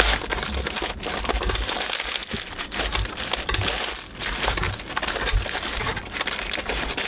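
Crinkling and rustling of a plastic poly mailer bag being handled and snipped open with scissors, a dense run of small crackles.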